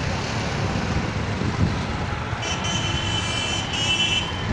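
Street traffic, a steady rumble of motor vehicles passing. In the second half a high-pitched vehicle horn sounds for about two seconds.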